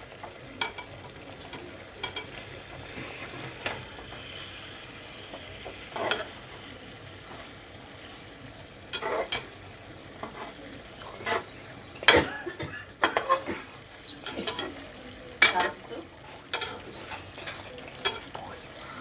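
Fish curry simmering and sizzling in a pan while the fish pieces are turned over with a spatula, the utensil knocking and scraping against the pan now and then, more often and louder in the second half.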